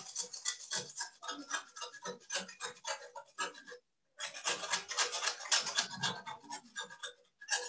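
A biscuit being grated against a stainless steel flat hand grater in short, repeated strokes, with two brief pauses, one near the middle and one near the end. The strokes shave the biscuit's edge into a slant.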